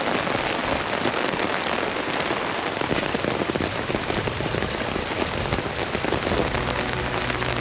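Heavy rain falling, a dense, steady hiss full of fine drop patters.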